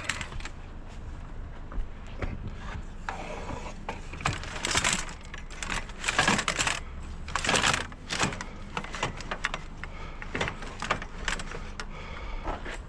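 Scrap metal being handled and loaded: irregular clanks, rattles and knocks, with louder scraping rushes about five, six and a half, and seven and a half seconds in.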